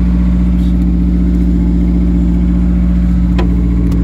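Car engine idling steadily with an even low hum, with one short sharp sound about three and a half seconds in.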